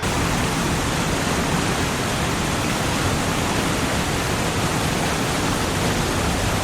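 Steady rushing of fast-flowing floodwater, an even wash of noise with no distinct events.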